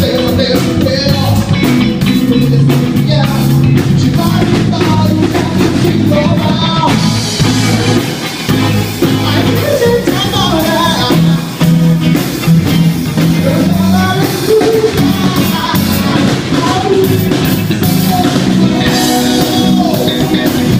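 A rock band playing a song with a lead singer over drum kit and guitar.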